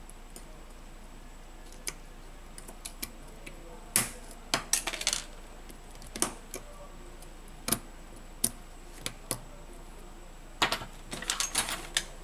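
Small sharp clicks and taps of phone parts being handled and pressed into a smartphone frame: scattered single clicks, with quick clusters about four seconds in and again near the end.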